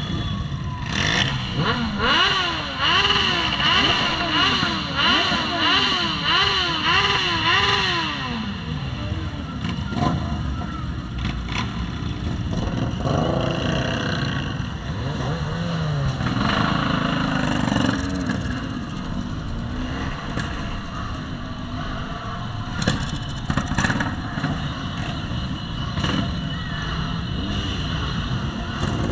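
Motorcycle engines running and revving in a street procession. For the first eight seconds a wailing tone rises and falls about once a second over them.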